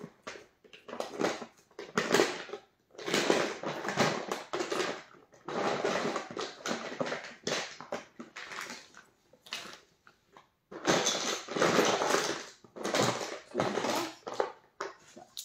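Rustling and crinkling handling noise in irregular bursts with short pauses.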